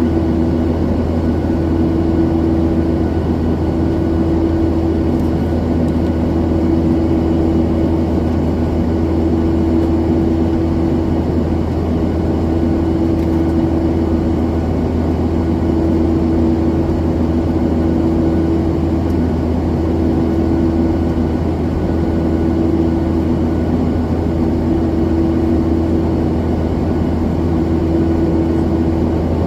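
Steady cabin noise of a Boeing 737-900ER under power, heard from inside the cabin: the even rush of its CFM56-7B turbofan engines and airflow, with a low hum whose droning tone swells and fades every few seconds.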